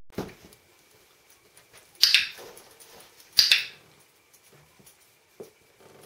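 A training clicker pressed twice, about a second and a half apart, each press a sharp double click-clack. The clicks mark the dog mouthing the rope of a laundry basket it is being taught to pull.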